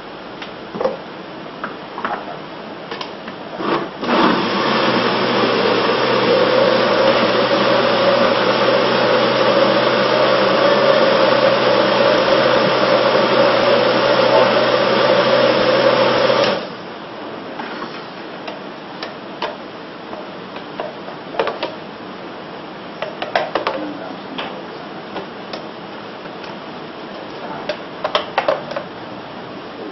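Countertop electric blender running steadily, puréeing soup. It starts about four seconds in and cuts off suddenly after about twelve seconds. Scattered light knocks and clatters come before and after it.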